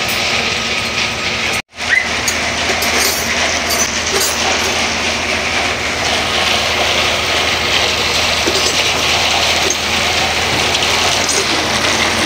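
Sinotruk dump truck's diesel engine running steadily with its newly fitted fan belts driving the fan and accessories. The sound breaks off for an instant about two seconds in.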